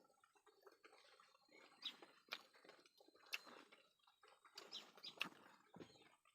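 Faint, scattered wet clicks and smacks of people eating fish with rice, a few short sounds a second apart.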